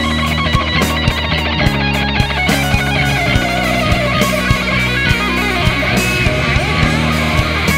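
Live rock band playing an instrumental passage: an electric guitar lead line with bends and vibrato over drums, bass guitar and keyboards.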